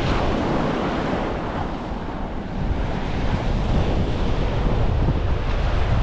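Surf washing onto a beach, with wind buffeting the microphone: a steady rushing noise that eases a little about two seconds in and then builds again.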